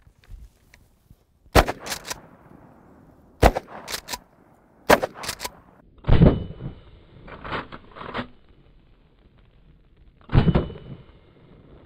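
Mossberg 500 12-gauge pump-action shotgun fired five times, with clacks of the pump being worked between shots. The first three shots are short and sharp; the last two, about six and ten seconds in, are longer, duller blasts of dragon's breath incendiary rounds.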